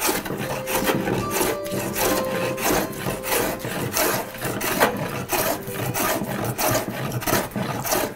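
Fore plane cutting wood in repeated strokes diagonally across a wide bench top, each stroke a rasping swish as a shaving peels off. The plane is knocking down the raised, pillowed middle of the top to flatten it.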